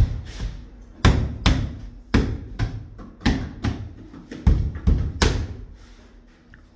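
Tile being tapped into place with a mallet: about ten dull, thumping knocks, loosely in pairs, over the first five seconds or so.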